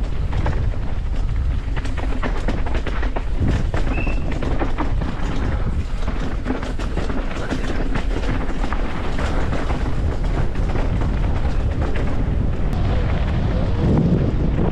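A downhill mountain bike descending a rough, dusty trail: a steady rush of wind noise under a constant rapid rattle and clatter of the bike over rough ground.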